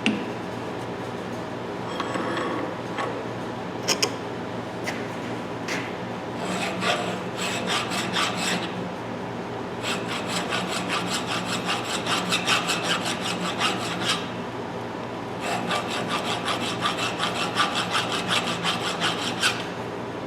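Hand file scraping across the rust-pitted jaw teeth of a 12-inch RIDGID pipe wrench, sharpening the grooves. The strokes come quickly, back and forth, in three runs. There are a couple of metal clinks before the first run.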